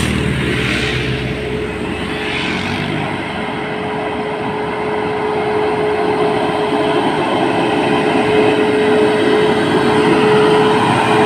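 A motorcycle passing, then a heavy American conventional box truck approaching, its diesel engine and tyres growing steadily louder, with a steady tone running under it all.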